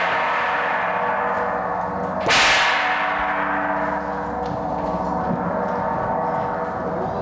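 A gong ringing with a dense, shimmering cluster of tones. It is struck once about two seconds in and rings on, slowly fading.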